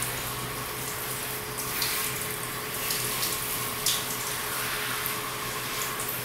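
Handheld shower head running water pressed against a wet Siberian Husky's coat, a steady hiss of spray on fur, with a faint steady low hum underneath.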